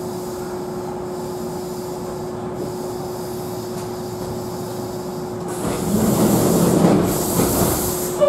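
Steady hum inside a Kintetsu commuter train car, with one held tone. About five and a half seconds in, the car's sliding doors open at a station with a loud rush of air and a rubbing, sliding rumble.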